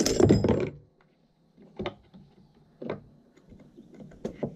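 Small metal mower parts being handled on the blade hub: a short clatter at the start, then a few separate light clicks and taps as the square metal washer is fitted over the blade.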